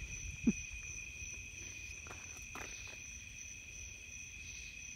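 Steady high-pitched chorus of night insects, with a brief low falling sound about half a second in and a few faint clicks.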